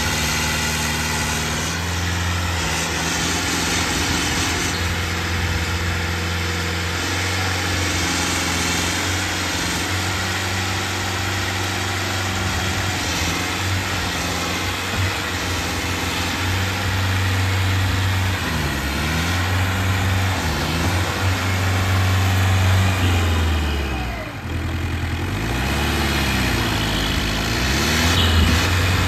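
Turbocharged Powertrac 7000 tractor's diesel engine working hard under load as it drags a disc harrow through loose soil. Its pitch shifts with the load, and it eases off briefly near the end before picking up again.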